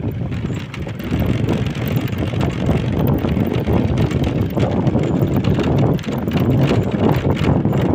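Low, steady rumble of wind buffeting the microphone of a small vehicle moving along a road, with the vehicle's running noise mixed in.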